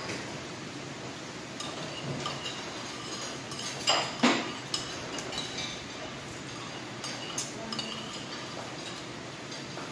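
Metal spoons clinking and scraping against bowls and side dishes as people eat, scattered light taps with two sharper clinks about four seconds in.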